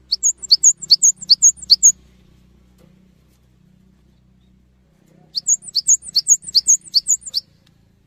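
Cinereous tit (gelatik batu) singing loudly: two bursts of its ringing two-note phrase, repeated quickly about six times each. Each burst lasts about two seconds, and the second begins about five seconds in.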